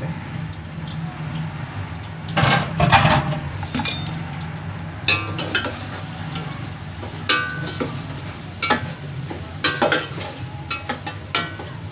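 Long slotted metal spoon stirring sliced onions in a large aluminium pot, clinking and scraping against the pot's sides about a dozen times, loudest a few seconds in. Under it, a steady sizzle of the onions starting to fry in hot oil for browning.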